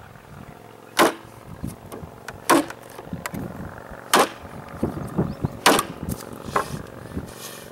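A Fiskars hatchet chopping into a 2x2 board: sharp thwacks of the blade biting the wood about every one and a half seconds, four strong strikes and a lighter fifth near the end, with small crackles of the wood in between.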